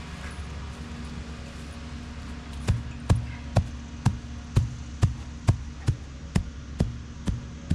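A series of about eleven evenly spaced dull thuds, roughly two a second, starting a little under three seconds in, over a steady low engine rumble.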